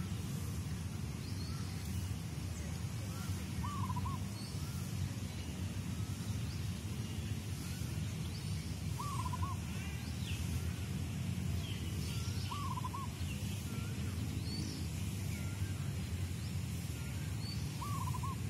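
Birds calling outdoors: one bird gives a short wavering call four times, several seconds apart, with faint higher chirps from other birds, over a steady low rumble.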